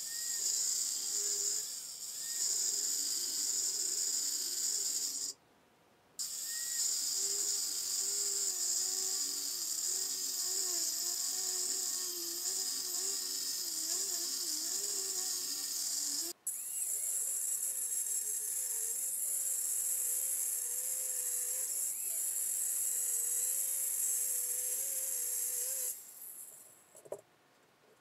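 Angle grinder running with its disc pressed against a steel plate: a steady grinding noise over a motor whine that wavers under load. It stops about five seconds in, starts again a second later, and shuts off about two seconds before the end.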